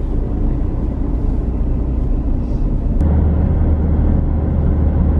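Steady road and engine noise inside a moving car's cabin, a low rumble that gets louder about three seconds in.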